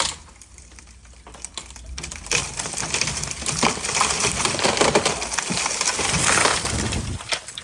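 Wood cracking and snapping with a dense crackle of branches, as a felled tree comes down. It builds from about two seconds in, runs loud for about five seconds and fades near the end.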